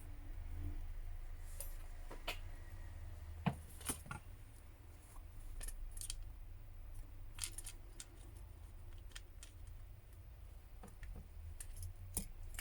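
Scattered small, sharp clicks and taps of small hand tools and phone parts being handled while a smartphone's internals are reassembled, over a steady low hum.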